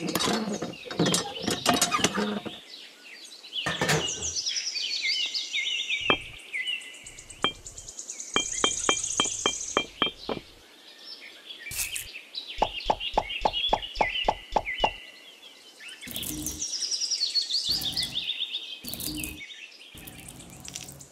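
Birds chirping repeatedly, over sharp knocks and a couple of runs of light, even taps at about three to four a second in the middle.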